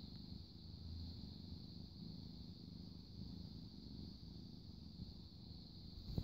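Kitten purring right against the microphone: a low rumble that swells and eases in a regular rhythm, about once a second. A single sharp click sounds near the end.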